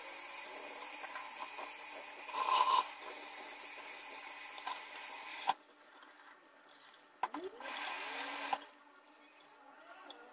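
Kitchen faucet running onto wet hair and into a stainless steel sink, with a louder surge a couple of seconds in; the flow cuts off sharply about halfway through. A short rush of similar noise follows about two seconds later.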